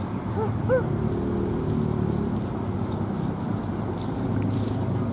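Steady low engine drone of a motor running nearby, holding an even pitch.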